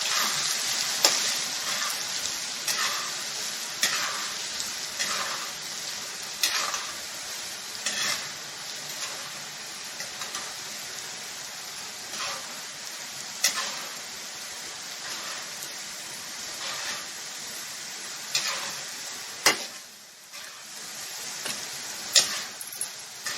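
Grated potato deep-frying in hot oil in a kadhai: a steady sizzle, with a metal spoon clicking and scraping against the pan every second or two as the shreds are stirred. The sizzle slowly gets quieter and dips briefly near the end.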